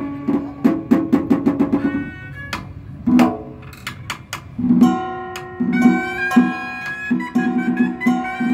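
Vietnamese Cao Đài ritual ensemble (nhạc lễ) playing an instrumental piece. Quick repeated plucked-string notes give way to a run of sharp percussion clicks midway. From about halfway, a held melody line sounds over steady plucked notes.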